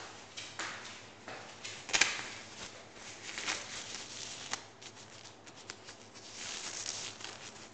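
Kitchen handling sounds: scattered light clicks and knocks with rustling, a sharper knock about two seconds in and a longer rustle near the end.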